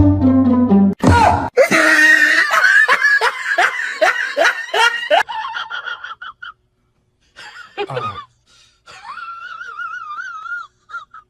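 A person laughing hard in quick repeated bursts for about four seconds, just after a bouncy music clip ends. Near the end comes a high, wavering vocal sound.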